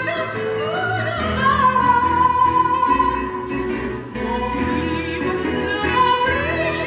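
A woman singing a melody through a microphone over electronic keyboard accompaniment, holding one long note shortly after the start.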